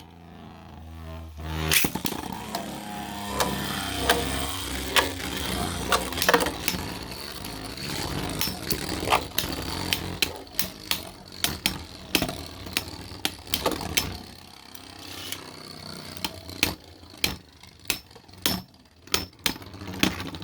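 Two Beyblade spinning tops, one a 3D-printed Allmax Shatter in shield armor, launched into a plastic stadium with a sharp strike about two seconds in. They whir and clash over and over with sharp clacks. After about fourteen seconds the whir drops and the hits come further apart as the tops slow down.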